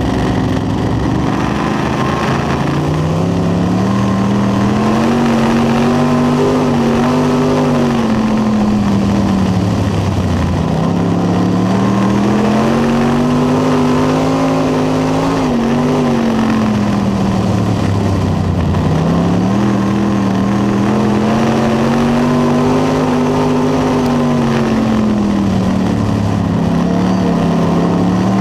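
Dirt late model race car's V8 engine at racing speed, heard from inside the cockpit. The revs climb and hold, then drop off and pick up again about every eight seconds, three times over, as the car laps the short oval.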